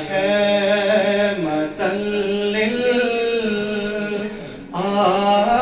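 A man's solo voice singing a devotional naat in praise of the Prophet Muhammad, drawing out the word "rahma" in long, ornamented held notes. The singing dips briefly a little after four seconds in, then picks up again.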